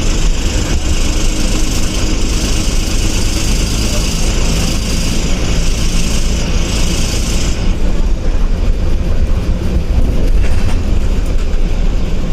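Eicher bus's diesel engine running on the road, heard from the driver's cabin as a loud, steady low rumble. A hiss runs over it for the first seven or so seconds and cuts off suddenly.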